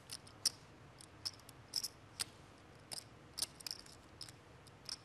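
Poker chips clicking against each other as players handle their stacks at the table: faint, sharp, irregular clicks, a few a second.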